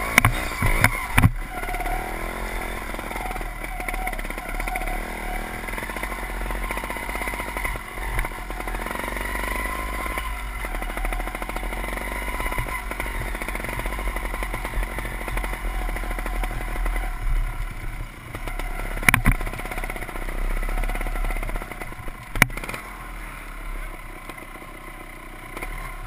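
Off-road motorcycle engine running at low revs while climbing a rough, rocky trail, its pitch wavering with the throttle, heard from the rider's own bike. A few sharp knocks come through, about a second in and twice near the end, and the engine settles lower over the last few seconds.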